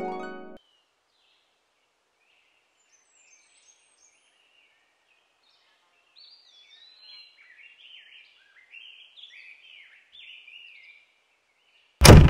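Music cuts off about half a second in. After a gap, birds chirp and twitter faintly in a quick run of short rising and falling calls. A loud, sudden burst of sound comes near the end.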